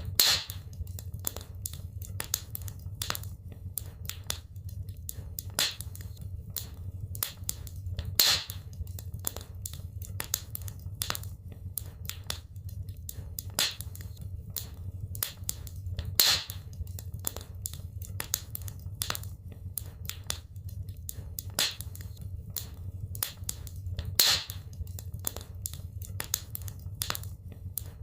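Wood fire crackling in a fireplace, with constant small snaps and a louder pop about every eight seconds over a low steady rumble.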